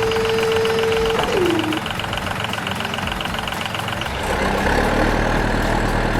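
Vehicle engine sounds: a steady tone that drops in pitch about a second in, a fast high ticking until about four seconds in, then a deeper engine rumble.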